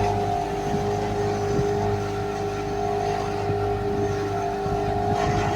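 Motorboat engine running steadily, a constant drone at an unchanging pitch.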